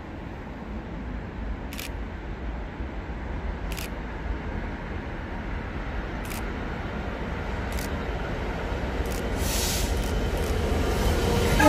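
DB Cargo Class 66 diesel locomotive approaching with a freight train, the low rumble of its two-stroke V12 engine growing steadily louder. The horn starts sounding right at the end.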